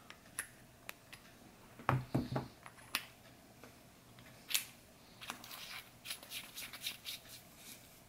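Small clicks and taps of a Brinyte HL16 flashlight being handled as it is worked out of its headband mount, with a duller knock about two seconds in and a quicker run of small clicks near the end.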